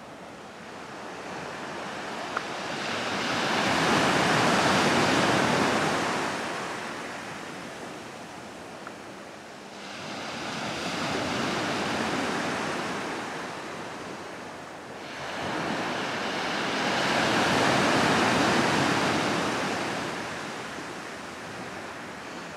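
Ocean surf washing ashore in three slow surges, each building and fading over several seconds.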